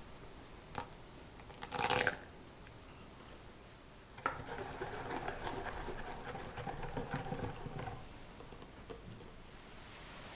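Water poured briefly into a glass bowl of egg yolk and sugar, followed by a silicone-coated wire whisk beating the yolk mixture against the glass bowl for about four seconds.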